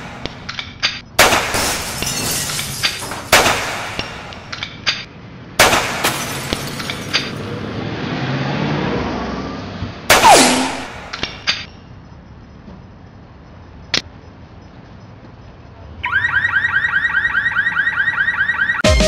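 Simulated gunshot sound effects: four loud shots with echoing tails, each followed by a few short clicks, and a falling whine after the last. Near the end, a fast-pulsing alarm tone starts and keeps going.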